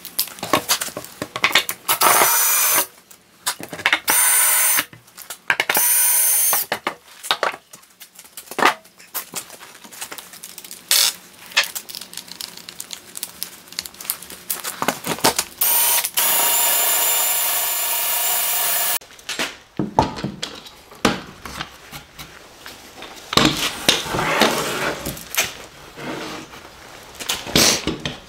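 A hand-held power drill boring holes through a wooden board. It runs in several short bursts of a second or two, then one longer run of about three seconds, with irregular knocks and scraping from the board and drill being handled in between.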